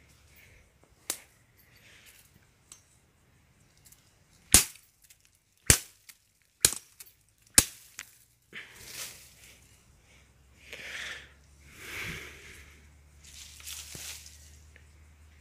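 Machete chopping a bamboo stalk at its base: one lighter strike, then four loud, sharp cracking blows about a second apart. After them come several swells of rustling leaves and dry litter as the cut stalk is handled.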